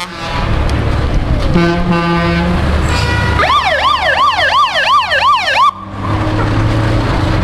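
Fire engine's horn sounding a blast of about a second, then its siren yelping rapidly up and down, about three sweeps a second, for roughly two seconds before cutting off suddenly, over the engine running.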